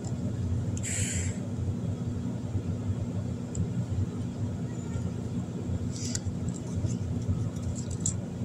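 A steady low rumbling hum, with a brief rustle about a second in and another about six seconds in, and a few faint ticks near the end.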